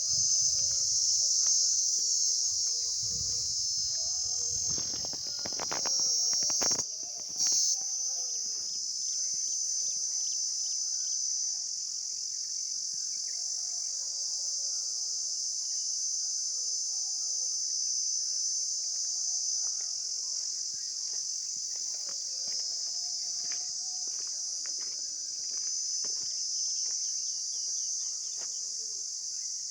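Insects calling in a continuous high-pitched chorus that holds steady. A low rumble and a few knocks come through during the first seven seconds.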